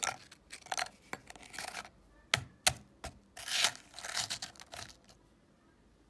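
Dry wheat biscuits dropped into the cast-iron hopper of a hand meat grinder and pressed down by hand: a run of rattles and scraping crunches against the metal, with a few sharp cracks about two to three seconds in.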